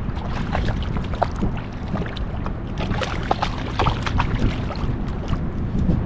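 Wind on the microphone and water moving around a kayak, under a run of irregular small splashes and clicks as a hooked fish is played to the surface beside the boat.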